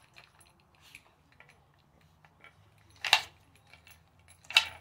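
Wooden snack-wheel dog puzzle toy clacking as a small dog pushes its pieces open to get at the treats: scattered light taps and clicks, with two louder clacks about three seconds in and again a second and a half later.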